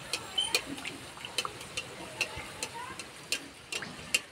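Hot oil sizzling around a stuffed paratha deep-frying in a kadai, with sharp irregular crackles and pops every fraction of a second over a steady hiss.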